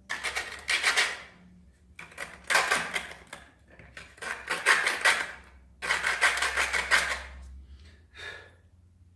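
Metal hand tools clattering and rattling in four bursts of about a second each, with a smaller one near the end: pliers and vise grips being handled and shifted.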